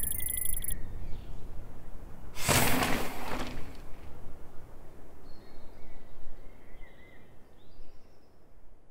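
Outdoor ambience: a low rumble of wind on the microphone with a few short bird chirps, and one loud rush of noise lasting about a second, starting about two and a half seconds in. The sound fades out near the end.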